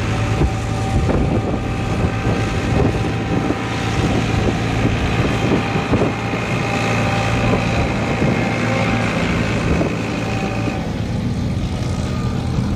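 Antique tractor engine running hard under load as it pulls a weight-transfer sled down the track, with a steady, droning engine note. The higher part of the engine note eases off near the end.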